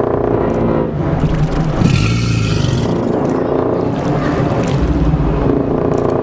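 American alligators bellowing: a loud, continuous, deep rumbling roar, set off by a tuba playing B-flat.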